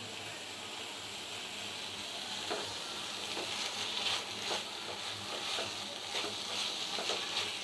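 Minced chicken sizzling in oil in a non-stick frying pan, with a silicone spatula stirring and scraping it around the pan in irregular strokes from a couple of seconds in. The spiced mince is being fried down for a filling.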